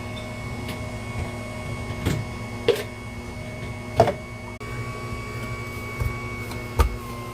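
Electric juicer's motor running with a steady hum, with a few sharp knocks scattered through it as produce is handled or pushed in.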